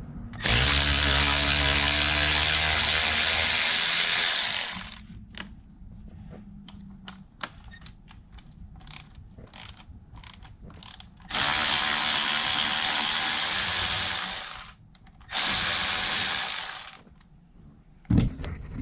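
Milwaukee cordless ratchet running in three steady bursts, the first about four seconds long, a second of about three seconds and a short third one near the end, its motor whining over a gear hum as it backs bolts out of the intake manifold. Light clicks and knocks of handling fill the gaps between runs.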